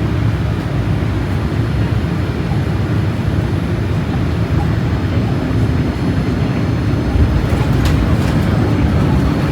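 Cabin noise aboard a Boeing 787-8: the steady low rumble of the engines and airflow, with a few faint rattles near the end.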